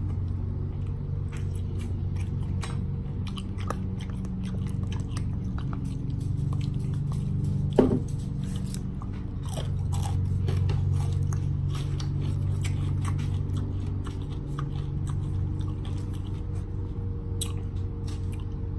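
Close-up chewing and biting of a bacon and egg omelet, with many small wet mouth clicks over a steady low hum. There is one short, louder sound about eight seconds in.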